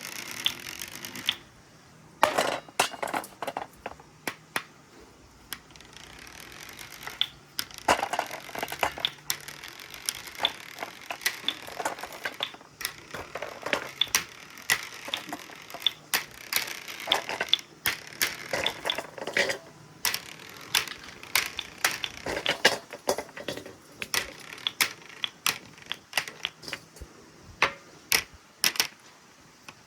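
Marbles rolling along a metal marble run track, with many sharp, irregular clicks and clacks as the balls strike the track and each other.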